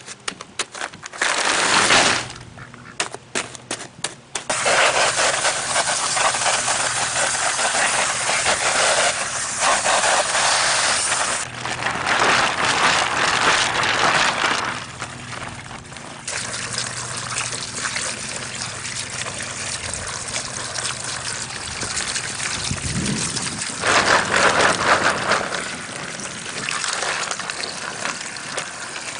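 Plastic bags of pond pebbles crackling and clicking as they are handled and pierced, then a garden hose running water into a bag of pebbles, the water gushing and spraying out through holes in the bag's bottom onto paving stones as the stones are rinsed of dirt.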